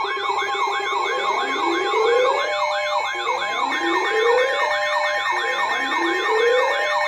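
Electronic alert siren: a fast yelp sweeping up and down about three to four times a second, layered with a slower tone that rises every two seconds or so and then cuts off, over a steady two-tone hum.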